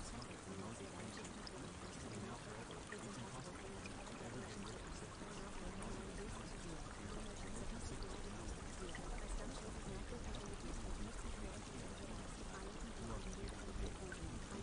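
Water pouring and trickling in a steady, unbroken stream.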